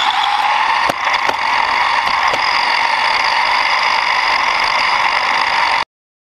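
Radio-controlled car's motor and drivetrain whining steadily at speed, heard from a camera riding on the car, with a few sharp knocks from the rough surface. The sound cuts off suddenly near the end.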